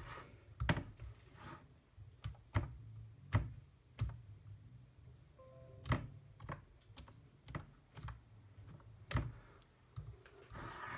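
Keys of a Trust Thosa wireless keyboard pressed one at a time as a password is typed: single, irregularly spaced clicks over a low steady hum, with a brief faint tone about halfway through.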